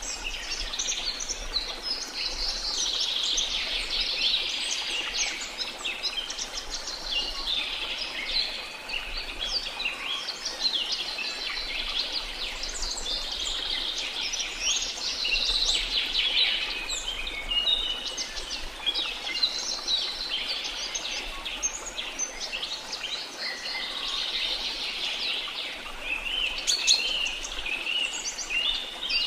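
Rainforest soundscape: many birds chirping, trilling and calling over one another without pause, over a steady background hiss.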